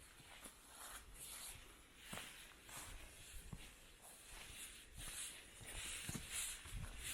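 A person's footsteps on a forest trail at a steady walking pace, about two steps a second, getting louder near the end.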